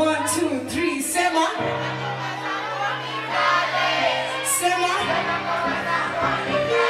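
Live band music from an electric guitar and keyboard, with a young performer singing into a handheld microphone over it. The low notes shift to a new pitch a little over a second in and again about five seconds in.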